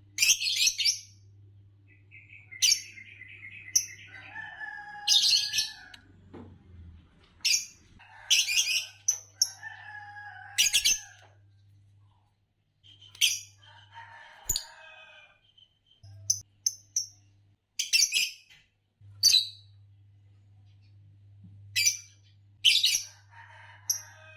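Green Fischer's lovebirds chirping: sharp, high chirps every second or two, mixed with stretches of lower, warbling chatter. A faint steady low hum runs underneath.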